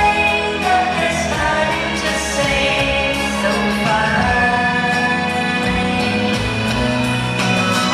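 A woman singing a slow pop ballad over band accompaniment in a live sound check.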